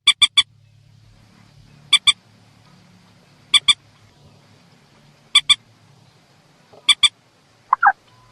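Repeated loud, short, harsh calls of a mandar (rail/moorhen), played as a bird-lure recording: a quick triple note at the start, then pairs of notes about every one and a half seconds. Near the end a different, lower, sliding call sounds once over a faint low hum.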